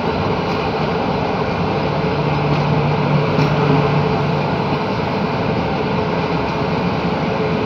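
Passenger train rolling slowly into a station, heard from the side of the train: a steady running rumble and rush of air, with a low hum that comes up for a few seconds in the middle.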